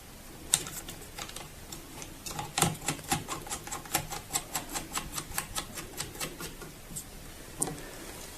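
Crosshead screwdriver driving in the small screw that holds the printer's paper holder: a run of sharp, light clicks, about three a second.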